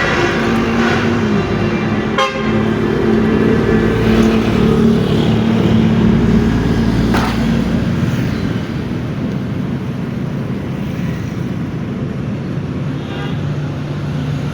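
Toyota Hiace engine running steadily after repair work, with a sharp click about two seconds in and another about seven seconds in; it runs a little quieter from about eight seconds on.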